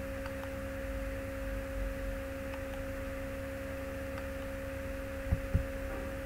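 Steady electrical hum on a desktop microphone recording, two even tones held throughout, with a few faint mouse clicks and two soft thumps a little after five seconds in.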